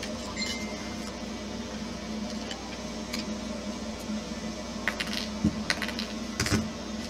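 Light clicks and taps of needle-nose pliers being handled on the plastic chassis and wiring of an RC crawler, with a few sharper metallic clatters about five to six and a half seconds in. A steady low hum runs underneath.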